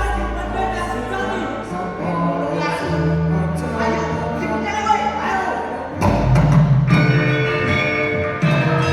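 Javanese gamelan music: bronze metallophones and gongs ringing in a dense, steady texture, with deep gong strokes at the start and again about six seconds in.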